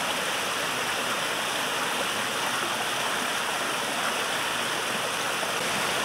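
Water pouring over stone waterfalls and a spa spillway into a swimming pool: a steady, even splashing.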